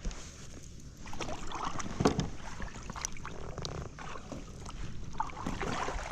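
Kayak on the water: water swishing and rustling, with irregular knocks, the sharpest about two seconds in.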